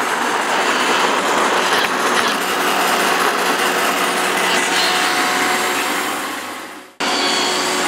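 iRobot Roomba 780 robot vacuum running: a steady whirring of its vacuum motor and brushes with a faint hum. Near the end it fades out and cuts straight back in.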